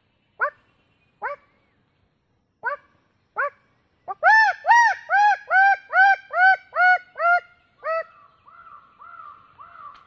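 A man's traditional vocal imitation of a bird-of-paradise call, used to lure the bird: four short, separate upward-sweeping calls, then about four seconds in a quick run of about nine loud arched notes, trailing off into fainter notes near the end.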